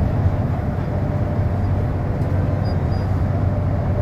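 Steady engine and road rumble inside a moving bus's cabin, with a constant low hum.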